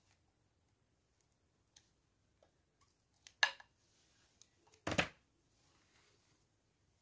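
A bead caterpillar toy being lifted off slime with a plastic spatula, knocking against a glass tray and then set down on a hard table: two short clattering knocks about a second and a half apart, the second the louder, with a few faint ticks before them.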